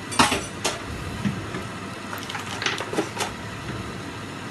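Plastic cling film crinkling and crackling as it is handled: a couple of sharp crackles just after the start and a short cluster around three seconds in, over a steady background hiss.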